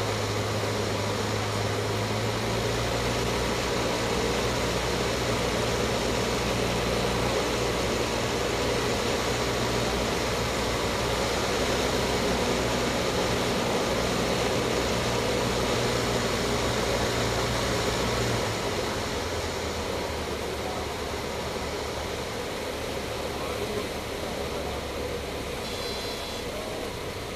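Cessna 152's four-cylinder Lycoming engine and propeller heard inside the cockpit, running steadily, then dropping in pitch and level about two thirds of the way through as power comes back toward idle for the landing. A faint high whine comes in near the end.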